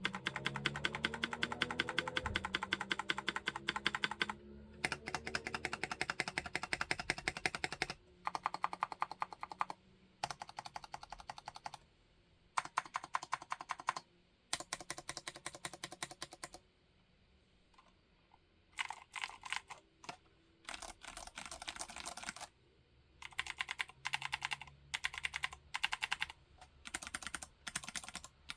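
Rapid typing on a Vortex mechanical keyboard, dense runs of keystroke clicks in bursts of a few seconds with short pauses between them and one longer pause past the middle.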